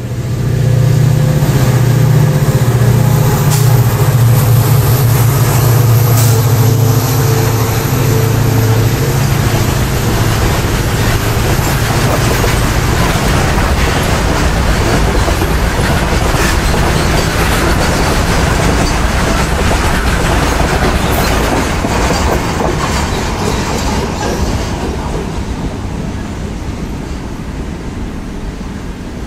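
A diesel-hauled freight train passing close by. The low drone of the twin diesel locomotives is heavy for the first ten seconds or so, then the wagons roll past with steady wheel clatter and rumble, fading slowly as the train draws away near the end.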